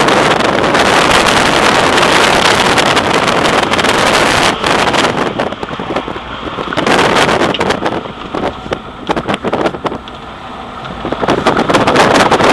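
In-cabin sound of a 2010 Audi S4 (B8), with its supercharged 3.0-litre V6, being driven hard through an autocross course, with wind noise on the microphone. The level falls off for a few seconds about eight seconds in and builds again near the end.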